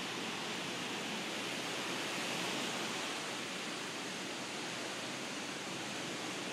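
Steady, even hiss-like rushing noise with no distinct events.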